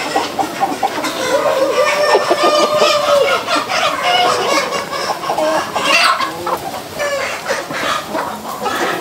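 A large flock of chickens clucking and calling over one another, many birds at once.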